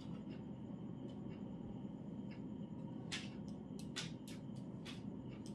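Plastic packaging crinkling and clothing fabric rustling as a new sleeveless vest is pulled out and unfolded, with several short crinkles in the second half over a faint steady room hum.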